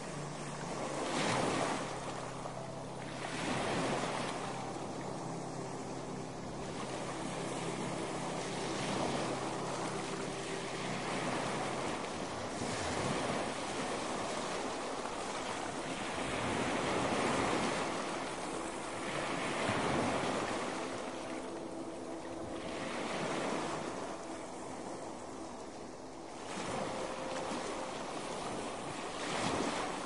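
Gentle sea surf washing onto the shore. The hiss of the water swells and eases every few seconds as each wave comes in and draws back.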